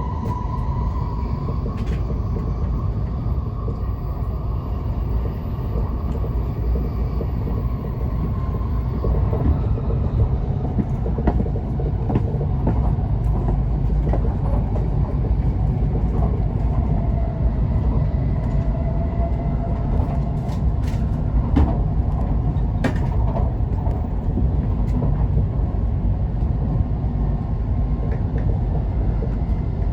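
Tokaido Shinkansen train running, heard inside the car: a steady low rumble with a faint motor whine that shifts in pitch, and scattered clicks from the track.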